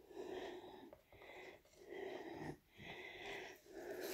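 A woman breathing audibly and fast, about five breaths in four seconds.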